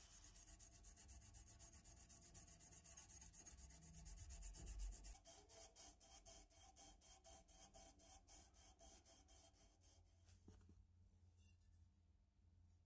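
Brass lamp burner part being sanded by hand: quick, even rubbing strokes, about five a second. They are louder for the first five seconds, then fainter, and stop about ten seconds in.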